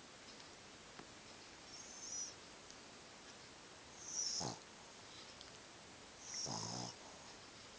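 Snoring in a slow, regular rhythm: three breaths about two seconds apart, each with a hissing rush of air. The last one is a buzzy, rattling snore.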